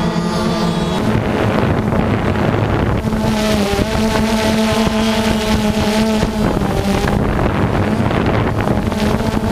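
Small motors running steadily, a hum with a few held tones that shift slightly in pitch, with wind noise on the microphone.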